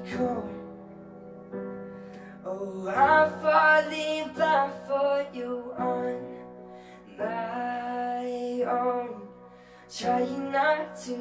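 A young man singing a slow ballad in phrases with short pauses between them, over held chords played on a keyboard.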